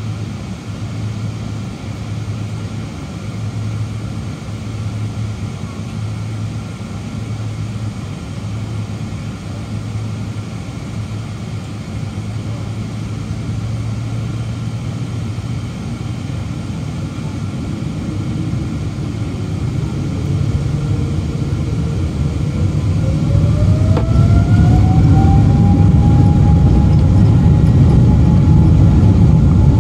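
Boeing 777-200's turbofan engines heard from inside the cabin beside the wing: a steady hum at low power, then a rising whine as the engines spool up to takeoff thrust, growing louder and levelling off near the end.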